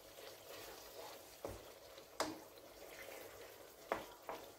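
Thick bolognese ragù simmering quietly in a frying pan as a wooden spoon stirs it, with three short clicks, the loudest a little past two seconds in.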